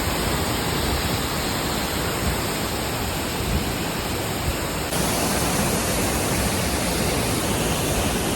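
Steady rush of river water flowing, an even hiss with no distinct splashes; the sound shifts slightly about five seconds in.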